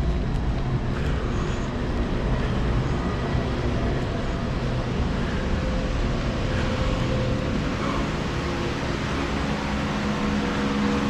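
Steady machine noise with a low hum running under it, unbroken throughout.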